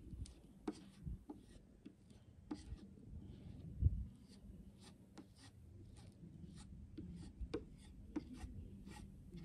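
A putty knife scraping and tapping on plywood as homemade sawdust-and-wood-glue filler is worked into screw divots: irregular light scrapes and clicks, with one dull thump about four seconds in.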